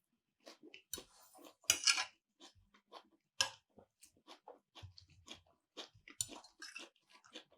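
A person chewing food close to the microphone: a string of short, irregular wet mouth clicks and smacks, with a louder bite about two seconds in and again a little later.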